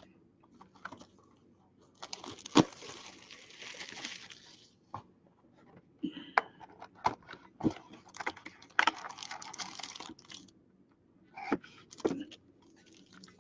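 Plastic trading-card pack wrappers crinkling and tearing as packs are opened, with sharp clicks and taps of cards being handled. Two longer spells of crinkling, about two seconds in and again about nine seconds in.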